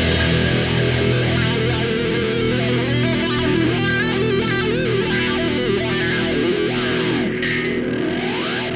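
Background rock music led by electric guitar, with held and bending notes.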